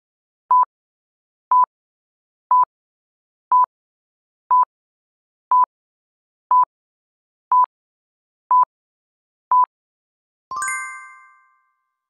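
Quiz countdown timer sound effect: ten short beeps at one steady pitch, one a second, then a bright bell-like ding near the end that rings out for about a second as time runs out.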